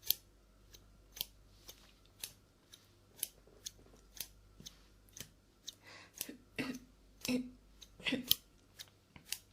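Scissors snipping in a steady run of sharp snips, about two a second, getting louder and heavier from about six seconds in.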